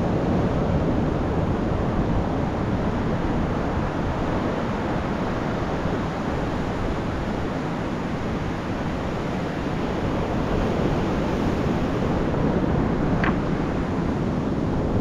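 Steady rushing noise of sea surf mixed with wind buffeting the microphone, with one short click near the end.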